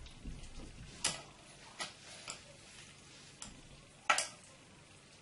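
A handful of sharp light clicks and taps as small plywood and wooden craft parts are handled and set down on a work surface, the loudest about four seconds in.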